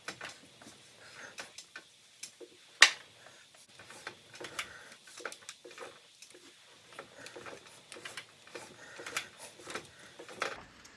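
Irregular light clicks and metallic ticks as the partly rebuilt Briggs and Stratton engine is turned over by its crankshaft, with the push rods and valves moving, and one sharp click about three seconds in.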